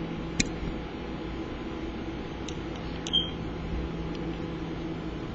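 Steady low machine hum with a faint hiss, with a light click about half a second in and a short high chirp about three seconds in.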